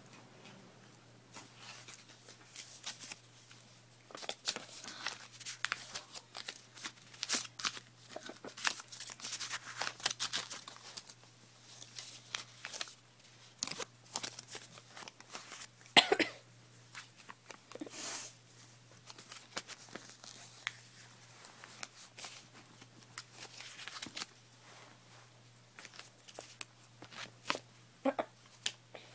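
A dog chewing and tearing at a bus pass: irregular crunching and crackling clicks throughout, with a louder snap about halfway through.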